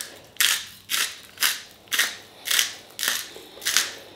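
Hand-twisted salt grinder crunching salt crystals over chips, in even rasping turns about twice a second.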